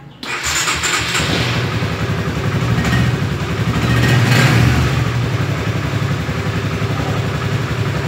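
Honda CB150R StreetFire's single-cylinder engine started on the electric starter, catching and running, louder around four to five seconds in. The starter motor has just been cleaned, its commutator sanded and its shaft greased, and is tested here for the grinding noise it made before.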